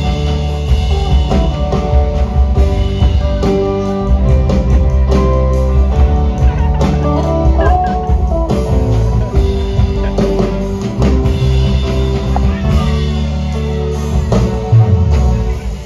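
Live band playing: electric guitar and bass guitar over a drum kit, with keyboard.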